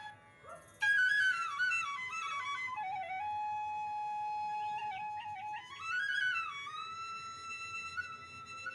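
Background music: a solo flute-like melody that slides between notes and holds long tones, starting after a brief pause about a second in.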